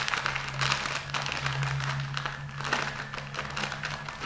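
Crinkling of a deflated foil snack packet being squeezed and felt between the fingers, a rapid, irregular crackle, over a steady low hum.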